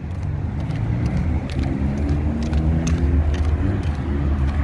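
Road traffic at a busy intersection: passing vehicles' engines and tyres make a steady low rumble, with one engine's hum standing out through the middle.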